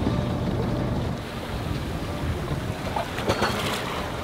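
Steady rush of wind and sea from a sailboat moving under sail, with wind buffeting the microphone.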